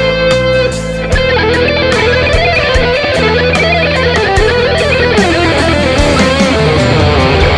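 Ibanez AZ electric guitar playing a lead melody with wide string bends and vibrato, over a backing track with drums and bass.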